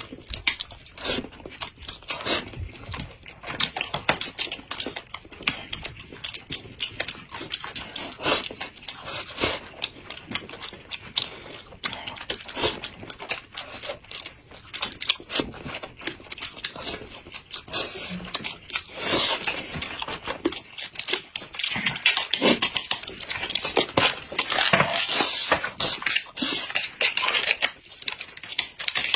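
Close-miked eating sounds: chewing and mouth smacks over rice, with chopsticks clicking and scraping on the plates, an irregular stream of small clicks.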